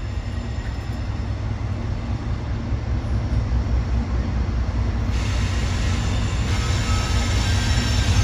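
Lead GE diesel locomotives of a freight train approaching and passing close, a low engine rumble growing steadily louder, with wheel and rail noise rising about five seconds in.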